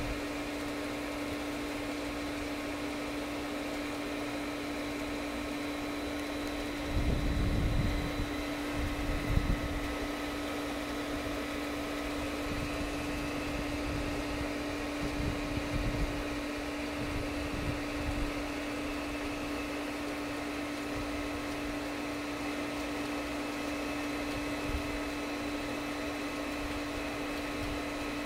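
Steady machine hum with one strong droning pitch and a few fainter high tones, unchanging throughout. Low rumbles surge in about seven to ten seconds in and again around fifteen to eighteen seconds.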